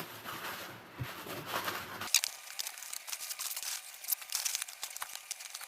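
Paper and plastic food packaging being handled, rustling and crinkling in irregular crackles while the food is set out.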